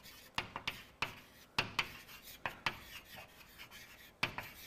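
Handwriting on a lecture board: an irregular run of short, scratchy strokes and taps as a phrase is written out.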